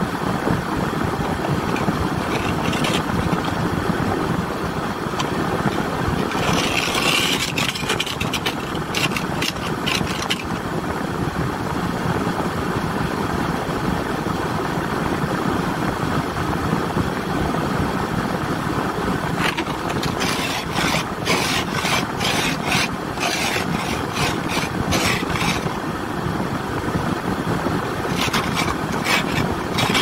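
Steady rushing noise of an idling car, heard from inside the cabin. It is broken three times by runs of quick scraping strokes: about seven seconds in, from about twenty seconds in for several seconds, and again near the end.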